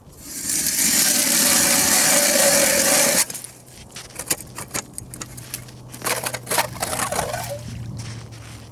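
Tornado hand ice auger drilling a hole in lake ice: a loud, steady grinding scrape as the blades cut, stopping suddenly about three seconds in. Crunches and clicks of ice chips and slush follow as the auger is worked in the hole and lifted out.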